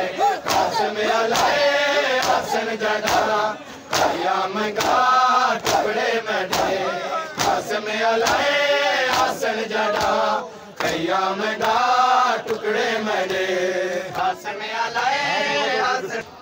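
Crowd of male mourners chanting a noha in unison, with the slaps of hands striking chests (matam) cutting through the singing. The sound drops away near the end.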